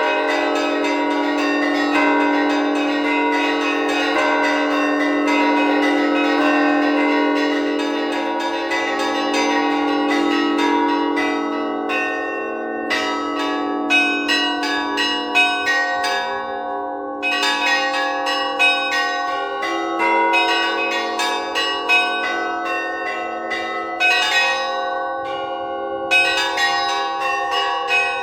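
Orthodox church bells of the Annunciation Cathedral in Kharkiv, rung by hand in an improvised peal. Small bells are struck in fast, dense rhythmic patterns over the long ringing of the lower bells. About ten seconds in, the high bells thin into phrases with short breaks while the lower bells ring on.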